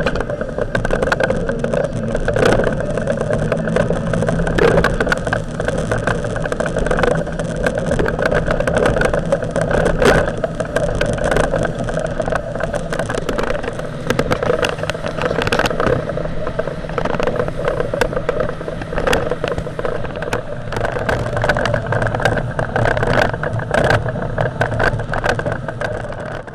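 Small boat's outboard motor running steadily at speed, with the hull knocking and splashing through the chop many times over.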